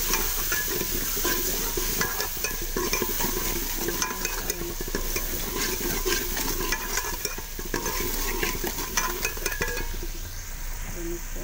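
Steel spoon stirring chicken and potatoes in spice masala in a metal pot, scraping and knocking against the pot over a steady frying sizzle. The scraping stops near the end.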